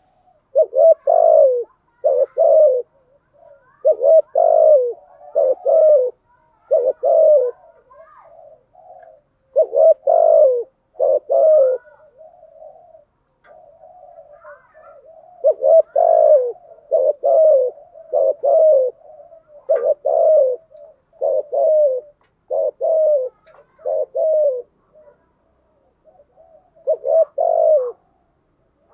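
Spotted dove cooing as a decoy call: loud low coos come in groups of two or three, with softer, quieter coos in between and short pauses.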